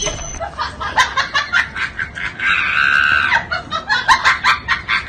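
A person's voice in quick shrill bursts, with one longer shriek about halfway through.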